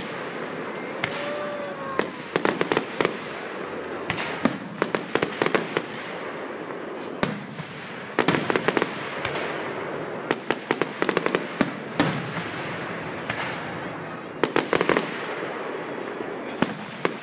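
Aerial fireworks display: shells bursting in clusters of rapid, sharp pops and crackles that come again every second or two.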